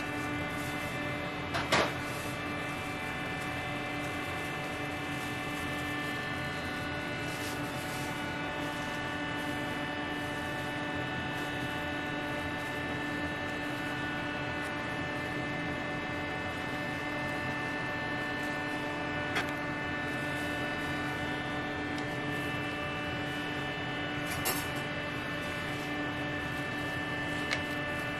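Steady hum of kitchen machinery, with a few light clicks and knocks as food is set down on a wooden serving tray, the sharpest about two seconds in.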